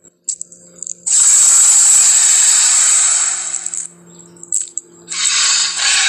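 Movie-style dinosaur roar sound effect, harsh and breathy with no clear pitch. It lasts about three seconds and follows a few short clicks. A second, shorter roar starts near the end.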